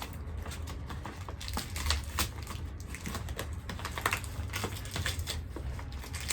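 A small parcel being opened by hand, without scissors: irregular crinkling and sharp clicks of the packaging and tape being picked at and torn.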